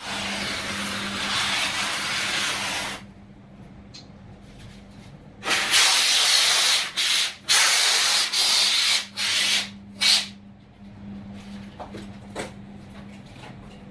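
Aerosol can of polyurethane foam hissing as it lays beads of foam adhesive through its straw nozzle: one long spray of about three seconds, then, after a pause, a run of shorter bursts of different lengths.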